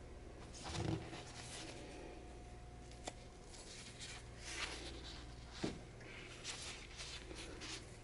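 Gloved fingers picking up and handling a silver round: soft rubbing and scraping of the textured glove against the coin and the tabletop, with a soft thump about a second in and a couple of small clicks.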